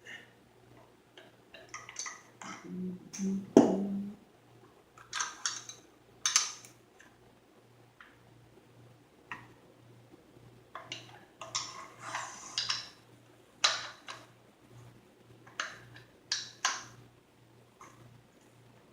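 Parts of a Kel-Tec RDB bullpup rifle being handled and fitted back together: scattered metallic clicks, short scrapes and knocks, with one loud knock a few seconds in.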